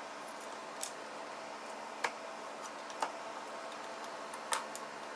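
Metal scraper chipping dried glue off small wooden clamp parts: a handful of short sharp clicks about a second apart as flakes snap loose.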